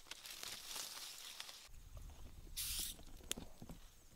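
Leaves and twigs rustling with small clicks as hands push through a tree's foliage. About a second and a half in, a low rumble comes in, with a brief hiss in the middle and one sharp click after it.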